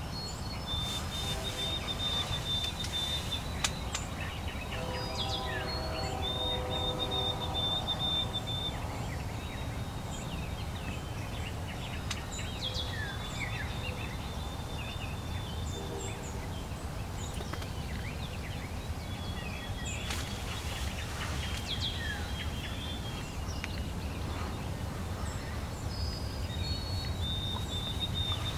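Wild turkey gobbling in the distance, about five seconds in and again faintly around the middle, while songbirds trill high and repeatedly over a steady low background rumble.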